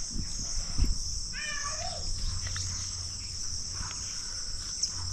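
Steady, high-pitched chirring of crickets or other insects in chorus, with a brief faint call about one and a half seconds in.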